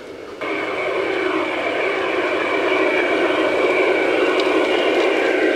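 Garden-railway model RhB train running on the track, a steady mechanical whine with wheel rumble on the rails, growing louder as it approaches. The sound comes in suddenly about half a second in.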